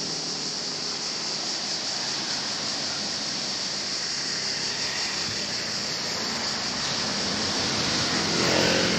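Surf washing onto the rocky beach below, under a steady high-pitched chorus of insects; the noise swells slightly near the end.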